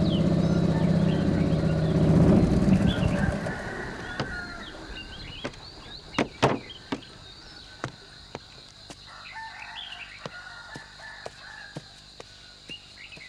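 Small motor boat's engine running with a steady drone, fading out over the first four seconds. Then a few sharp knocks, while a rooster crows and small birds chirp.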